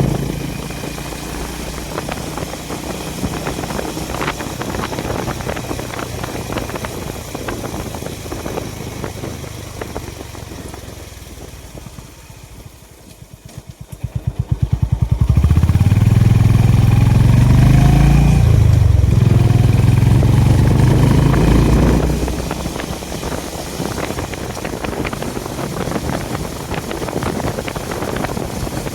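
Honda H'ness CB350's single-cylinder engine and exhaust while riding. It runs steadily, eases off to a slow thump about halfway through, then pulls hard with rising pitch, dips at a gear change, rises again, and settles into an even cruise for the last few seconds.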